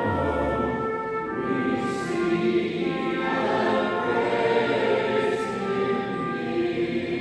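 Choir singing sacred music in slow, sustained chords.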